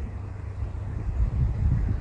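Wind buffeting the microphone: an uneven low rumble with no steady tone.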